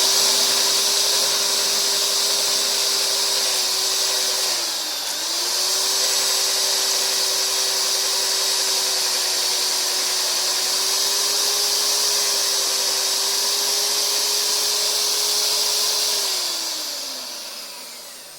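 Magnetic-base drill running at a steady speed, drilling out the stripped head-stud threads of a Ferguson TVO engine block for helicoil inserts. Its pitch dips briefly about five seconds in, then the motor spins down near the end.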